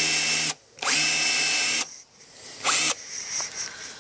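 Bosch cordless drill spinning a countersink bit in reverse against fiberglass to clean up a drilled screw hole. It runs in three spurts: one that stops about half a second in, a second of about a second, and a short burst near three seconds in. Each spurt starts with a brief rising whine.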